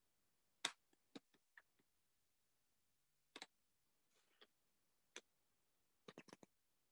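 Scattered computer mouse clicks against near silence: a sharp click about half a second in, a few lighter ones after it, a double click around the middle, and a quick run of clicks near the end.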